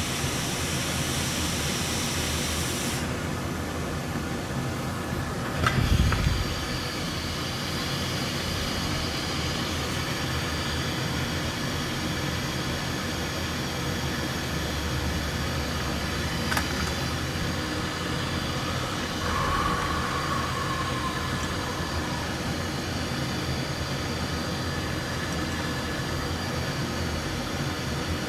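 Steady blowing fan noise. Its high hiss cuts off about three seconds in, then there is a single low thump around six seconds and a sharp click later.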